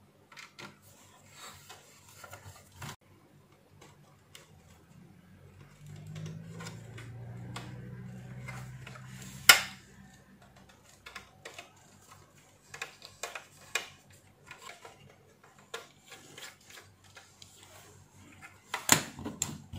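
Hand tools working on a plastic steam iron: scattered clicks, taps and scrapes of a screwdriver and pliers on the housing and cable terminals. A low hum runs for a few seconds before one sharp click about halfway through, and a cluster of louder knocks comes near the end.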